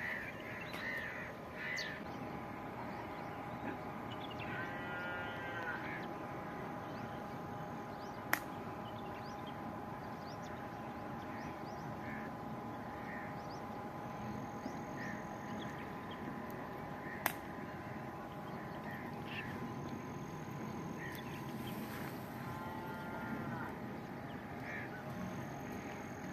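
Crows cawing now and then in the open countryside, with two sharp clicks, one about eight seconds in and one about seventeen seconds in, over a faint steady background of birds.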